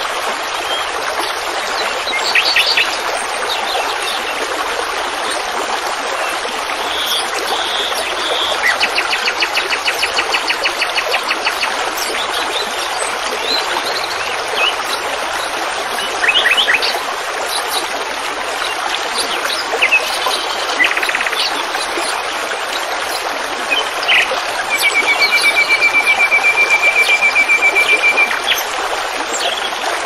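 Small songbirds chirping, with a rapid trill about a third of the way in and a louder, longer one near the end, over a steady rushing hiss.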